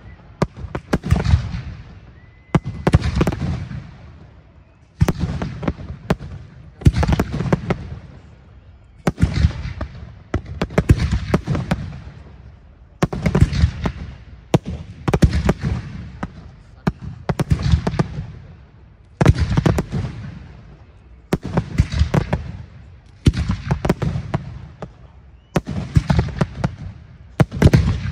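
Aerial firework shells bursting in a steady sequence: a cluster of sharp bangs about every two seconds, each trailing off in a rolling echo.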